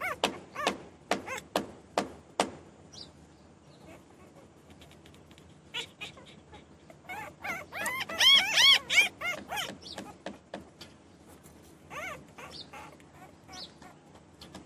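Newborn puppies crying and whining. A quick run of short, sharp squeaks comes first, then a loud burst of high-pitched cries that rise and fall about halfway through, then a few fainter whimpers near the end.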